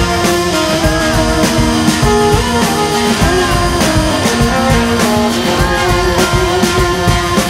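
Rock music soundtrack with guitar and drums.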